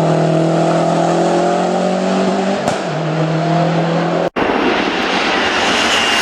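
Lancia Delta Integrale's turbocharged four-cylinder engine pulling hard at high revs, heard from inside the car. The note falters briefly partway through, as at a gear change, and the sound cuts out for an instant later on.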